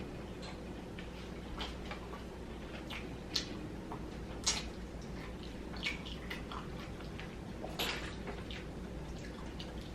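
Close-miked chewing and lip smacks from eating fried chicken wings: a scattered series of short wet clicks and smacks, a few seconds apart, over a low steady hum.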